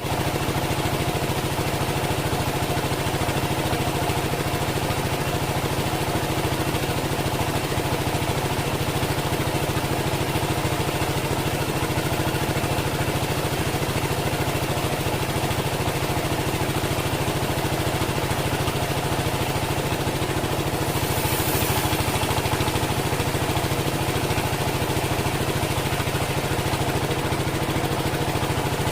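Engine powering a home-built bandsaw sawmill, running steadily with a constant drone. A short burst of hiss rises about three-quarters of the way through.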